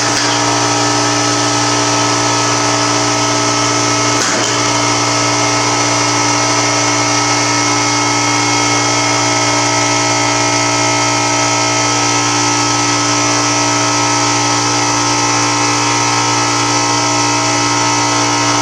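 A machine running with a steady, constant-pitched hum and no change in speed, with two brief faint knocks, one at the very start and one about four seconds in.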